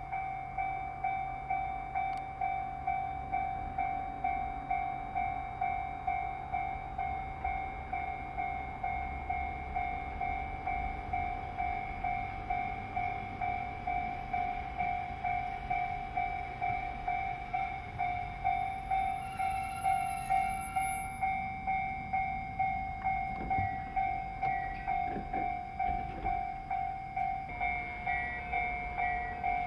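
Electronic level-crossing alarm ringing in a steady, even pulse just under twice a second, over the low rumble of an electric commuter train running in and stopping. A brief high whine comes about two-thirds of the way through.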